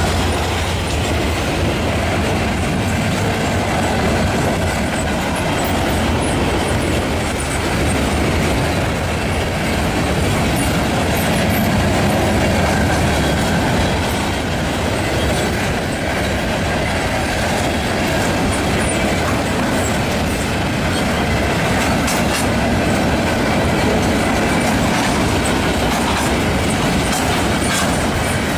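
Freight train rolling past at close range, its cars' steel wheels clattering steadily on the rails.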